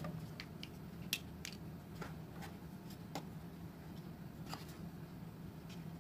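Kinetic sand being scooped and packed into a mold, with a scatter of small clicks and taps from the scooper and mold against the tray, over a steady low background hum.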